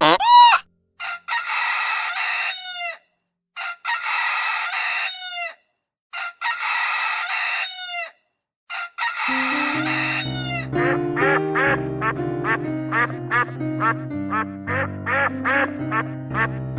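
Domestic fowl calling: a short call, then three long, harsh calls of about two seconds each. Background music with a bass line comes in about nine seconds in, with short repeated calls over it.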